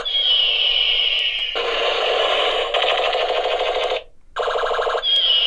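Battery-powered Ben 10 toy gun playing its electronic firing effect through its small speaker as the trigger is held. A falling electronic whistle over a pulsing buzz gives way to a harsh rapid-fire noise. It cuts off about four seconds in and starts the same cycle again half a second later.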